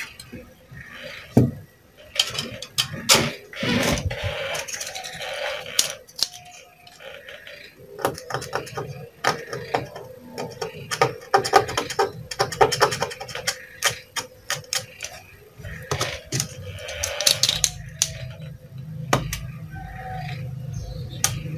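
Hand tools scraping, tapping and clicking against a TV circuit board in irregular spells, with many sharp clicks and a few longer scratchy stretches.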